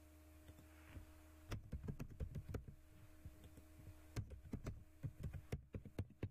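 Computer keyboard typing: a short burst of key clicks about a second and a half in and a longer run from about four seconds, over a steady low hum.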